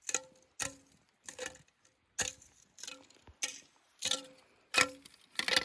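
Footsteps crunching on the forest floor at a steady walking pace, about eight or nine steps, some with a faint creak.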